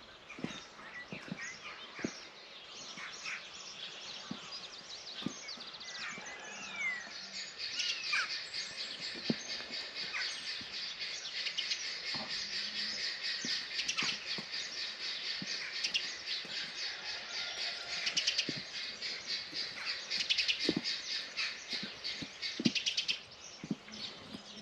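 Dawn chorus of several songbirds singing and trilling together, the song growing denser about seven seconds in and thinning out near the end. Occasional soft knocks are heard underneath.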